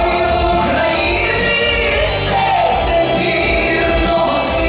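A woman singing a pop song in Ukrainian into a microphone, holding long sustained notes over backing music with a steady bass.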